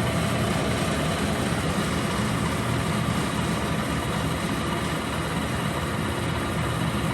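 Clausing 8540 horizontal milling machine running, with a steady mechanical hum from the spindle drive and the automatic power feed moving the table.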